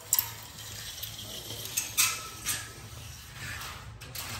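A handful of light clicks and taps from a tape measure handled against the metal spindles of a railing panel, the sharpest about two seconds in, over a low steady hum.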